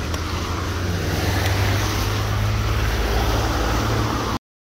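Cars driving past close by over a level crossing: tyre noise on the wet road and a steady low engine hum that swells from about a second in. The sound cuts off suddenly near the end.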